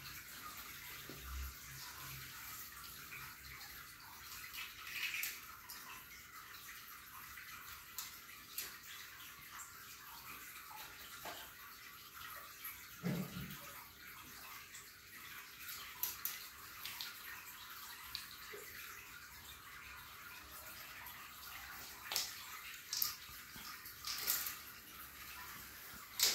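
Scattered light clicks and taps of plastic toys and building bricks being knocked about by playing kittens on a tiled floor, over a steady hiss.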